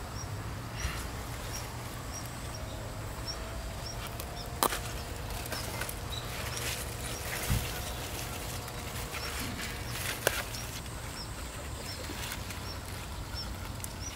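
Pumpkin leaf stalks snapped off by hand, three sharp snaps, over a low steady rumble. A small creature's high chirp repeats about two and a half times a second throughout.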